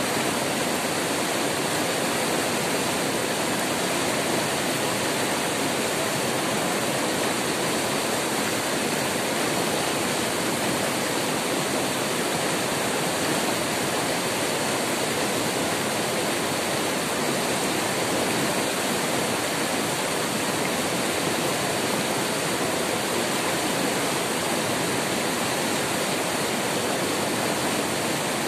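Whitewater rapids pouring over boulders close by: a loud, steady rush of water that does not change.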